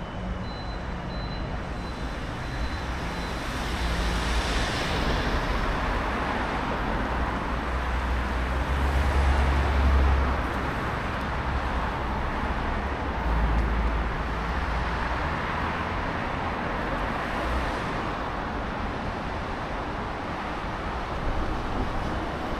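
City road traffic: vehicles passing with a steady hiss of tyres and a low rumble that swells a few seconds in, loudest about ten seconds in, and again a few seconds later.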